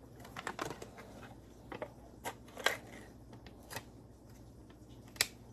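Food packaging being handled and opened by hand: scattered sharp clicks and crinkles, bunched together in the first second, then single ticks every second or so.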